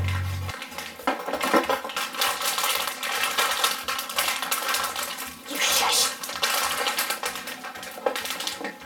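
Handling of slime ingredients: a run of crinkling, rustling and small clinks as sequins and clay are added to a bowl.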